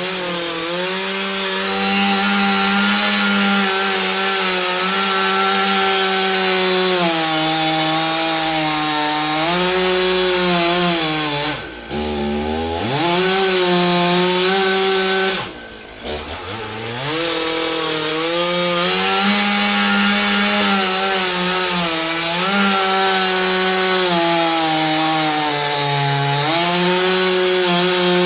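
Two-stroke chainsaw running at high revs. Its pitch sags in stretches as if under load in a cut, and twice, about twelve and sixteen seconds in, the throttle is let off briefly and the engine drops low before revving back up.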